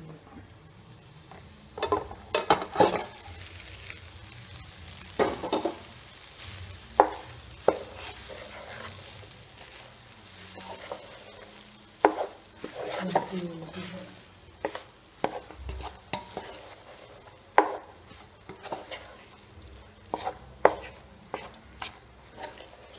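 Fried rice being stirred and tossed with a spatula in a hot pan: irregular scrapes and knocks of the spatula against the pan every second or so, over a faint steady sizzle.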